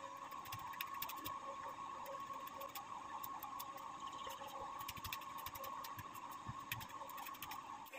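Kitchen knife chopping lightly fried cashews and almonds on a wooden cutting board: a fast, uneven run of light taps, over a faint steady hum.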